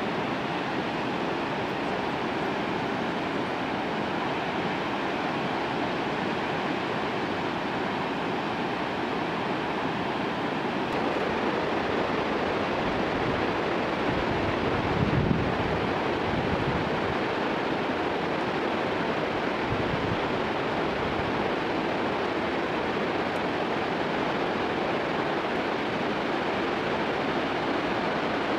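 Steady rushing of a glacial mountain river running over boulder rapids, with a brief gust of wind buffeting the microphone about fifteen seconds in.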